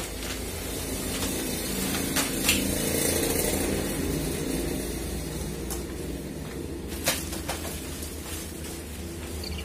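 Steady low rumble of background traffic, swelling a little between about two and four seconds in. Over it come a handful of sharp clicks and rustles as protective paper and packing are pulled off a new printer.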